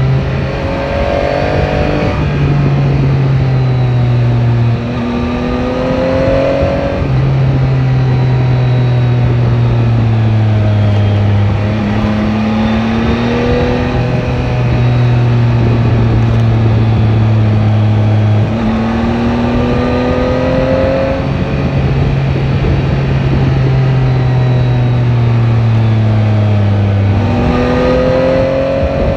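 Yamaha Tracer 9 GT's three-cylinder engine running under way, heard on board. Its note sinks slowly for several seconds at a time and jumps back up a few times, as with gear changes.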